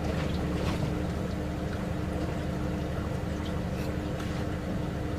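A small electric boat under way: the electric outboard motor runs with a steady, even hum over a low rumble, with light splashes of water against the hull.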